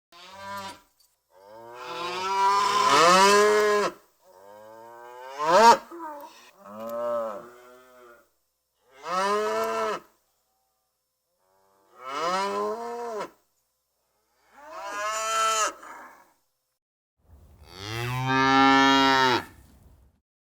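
Cows mooing: about eight separate moos, each lasting one to two and a half seconds, with silent gaps between them. Each call rises and falls in pitch, and the last one is the deepest.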